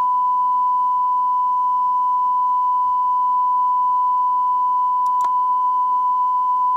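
A 1,000 Hz test tone recorded on a Pioneer reel-to-reel tape deck, played back with its wow and flutter corrected by Capstan: one steady, unwavering pitch. A faint click about five seconds in.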